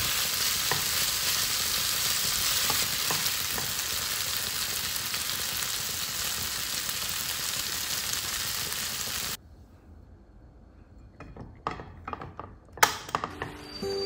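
Paneer, onion and bell peppers sizzling in a pan while a silicone spatula stirs them, with a few light scrapes. About nine seconds in the sizzle cuts off, and a few soft knocks and clicks follow, one of them sharp, near the end.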